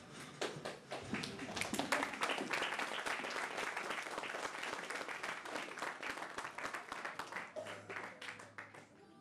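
Audience applauding, many hands clapping together, swelling in the first couple of seconds and dying away near the end.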